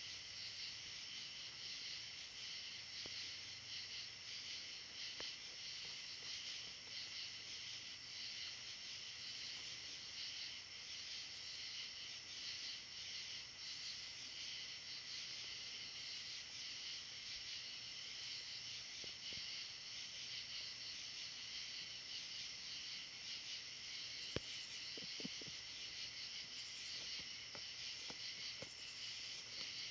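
Steady night-time insect chorus, a dense high-pitched trilling, with a few faint ticks and rustles near the end.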